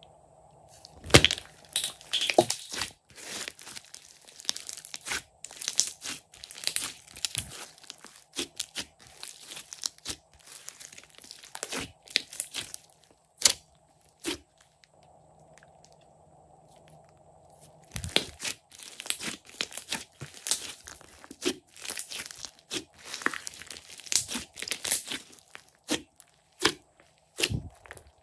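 Hands squeezing and pressing a large mass of glossy slime: sticky crackling and popping in dense clusters of quick clicks as air pockets in it burst, with a quieter few seconds around the middle.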